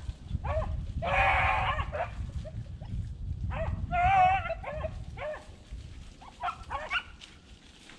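A pack of beagles baying while running a rabbit: several hound voices in short chops and longer bawls, overlapping most densely about a second in and again around four seconds, then thinning out. Wind rumbles on the microphone, easing after about five seconds.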